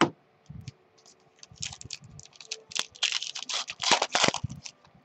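A sharp tap as a stack of trading cards is set down on the table, then a card pack's wrapper crackling and crinkling as it is torn open, loudest in the second half.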